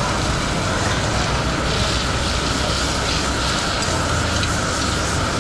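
Steady noise of gas burners running under small pans, with beef sizzling in them.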